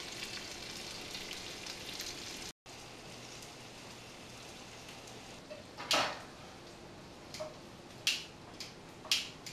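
Minced garlic frying in olive oil and butter in a nonstick pan, a steady sizzle that drops in level about two and a half seconds in. A few sharp taps stand out in the second half, the loudest about six seconds in.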